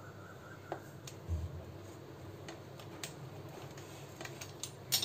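Pizza-cutter wheel rolling through soft stacked pancakes on a plate: faint scattered ticks and clicks of the steel wheel against the plate, with a low bump about a second in and a sharper click near the end.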